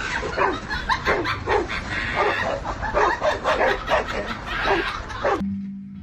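A dog giving a rapid run of short yips and whiny barks, several a second, which cut off suddenly about five seconds in.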